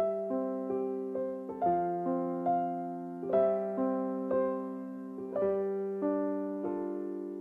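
Background music: a slow, gentle piano piece. Single notes are struck a little under a second apart and left to ring over held low notes.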